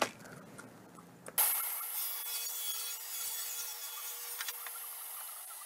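Plywood sheet sliding across a cast-iron table saw top, a steady rubbing hiss with a faint steady hum that starts suddenly about a second and a half in.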